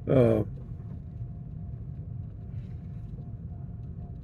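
Steady low rumble of a vehicle driving on a gravel road, heard from inside the cab. A short vocal sound comes right at the start.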